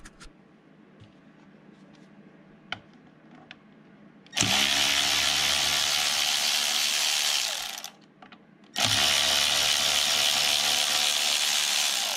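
A handheld power tool runs twice, each time for about three and a half seconds with a steady whine, loosening the top-cover bolts on a Tremec TKO transmission case. A few light clicks come before the first run.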